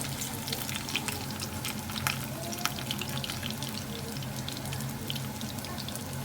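Chicken thighs deep-frying in oil: a steady sizzle full of scattered crackles and sharp pops, over a steady low hum.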